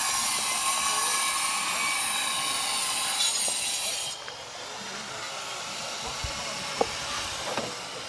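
A power tool at work on the building site, a steady harsh hiss that cuts off about four seconds in, leaving quieter site noise with a couple of short clicks.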